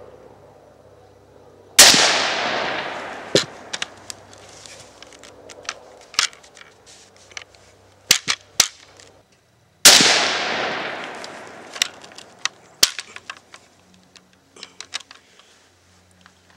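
Two loud shots about eight seconds apart from a 1900 Tula Mosin-Nagant M91 rifle in 7.62x54R, each with a long fading echo. Between and after the shots come sharp clicks and knocks of the bolt being worked. The rifle was having trouble extracting the spent cases of the surplus ammunition.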